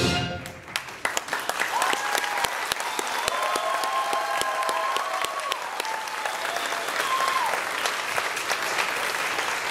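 Theatre audience applauding as a musical number ends. The music's last note cuts off right at the start, clapping builds within about a second and stays steady, and several voices whoop and cheer over it.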